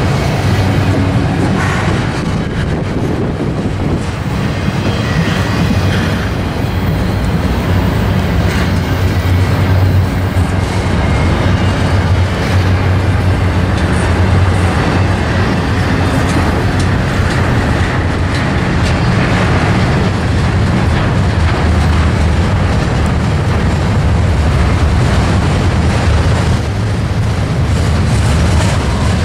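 CSX double-stack intermodal freight train's well cars rolling past: a steady rumble of steel wheels on rail.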